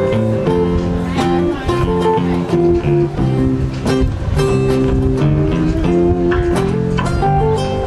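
Guitar-led band music: chords plucked and strummed, notes ringing and moving step by step.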